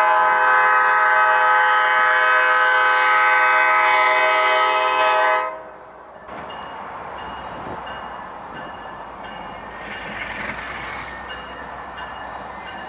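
Passenger train's locomotive horn sounding one long, loud, steady blast that cuts off sharply about five and a half seconds in. After that comes the quieter, steady noise of the train running along the track.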